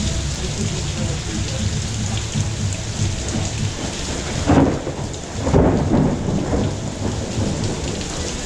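Steady heavy rain, with thunder rumbling about halfway through.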